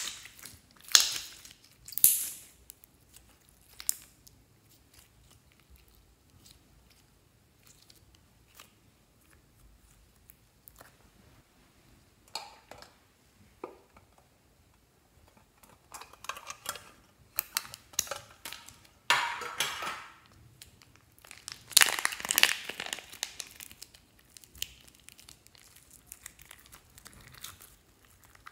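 Hands handling slime and its plastic packaging: a few loud wet squishes in the first couple of seconds, a quiet stretch with small clicks, then a long stretch of plastic crinkling as a plastic slime container and a bag of slime are handled.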